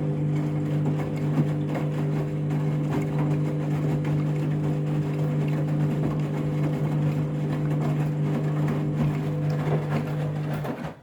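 Washing machine running in its rinse cycle with a half load of towels: a steady motor hum under the rough noise of the wet load and water in the drum, cutting off abruptly at the end.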